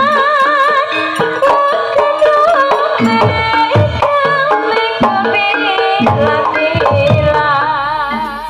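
Live Javanese music: rapid hand-drum strokes under a melody with wide vibrato, thinning out and getting quieter near the end.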